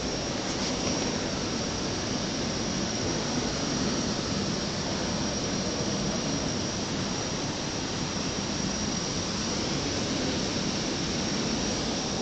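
Steady hiss of background room noise, even and unbroken, with a faint thin high whine above it.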